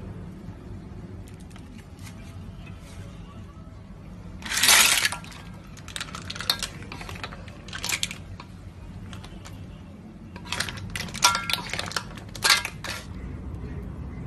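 Clams being stirred in a pan, the shells and the spatula clattering against the metal in short bursts. The loudest clatter comes about five seconds in, with another cluster of clinks near the end.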